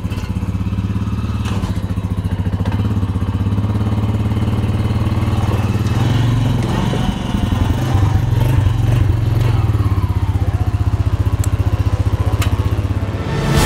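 Utility ATV engine running steadily at idle while the quad is ridden down steel loading ramps off a pickup bed, picking up slightly in the middle, with a faint clank or two.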